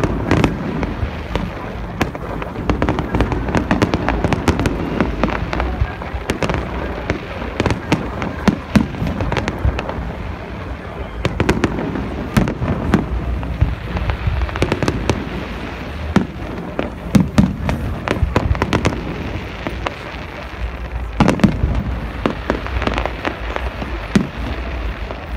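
Fireworks display: aerial shells bursting in an irregular run of sharp bangs and crackles, with a louder cluster of bangs a few seconds before the end.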